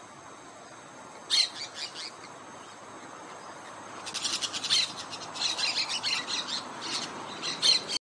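Orange-chinned parakeets chattering. A short burst of shrill chirps comes about a second in, then a dense run of rapid, shrill chirps fills the last four seconds.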